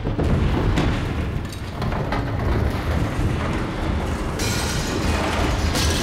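Loud, dense rumbling noise with a heavy low end that starts abruptly, with a brighter hiss joining about four and a half seconds in.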